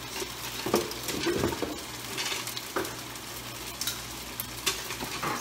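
Thin slices of marinated beef sizzling in hot oil in a frying pan, with a few light clicks and knocks scattered through.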